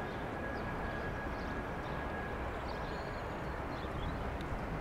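Jet airliner engines running: a steady rushing noise with a thin high whine that fades out about two and a half seconds in.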